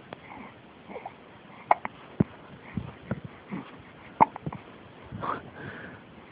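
A baby hiccuping: short, sudden hiccups at irregular intervals, several in a row, the loudest a little past four seconds in.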